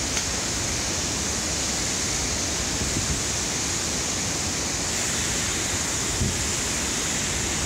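Steady, even rush of moving water, with a bright hiss on top, typical of fast-flowing floodwater.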